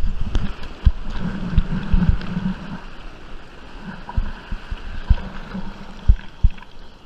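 Whitewater of a broken wave rushing and fizzing around a bodyboard as it rides the foam into the shallows, heard from a camera on the board, with several dull thumps of water slapping against the camera. The rush is loudest at first and dies down after about three seconds.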